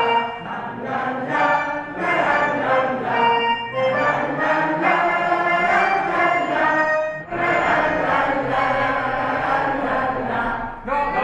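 A large group of voices singing a chant together, in short repeated phrases, with a brief break about seven seconds in.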